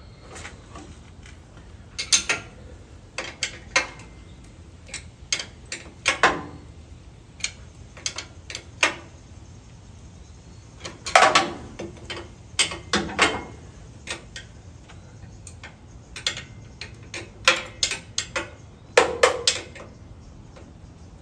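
A wrench working the lathe's mounting bolt at the tailstock end after it has been shimmed: irregular sharp metal clicks and clanks, some in quick clusters, as the bolt is tightened.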